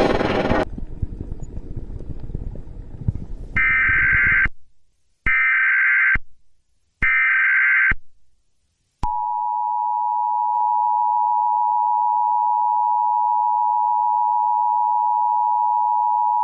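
Emergency Alert System signal: three short data bursts of the SAME header, each about a second long with gaps between them, then the two-tone attention signal, two steady tones sounding together for about eight seconds. Before them, loud music cuts off under a second in and a low rumble fades out over the next few seconds.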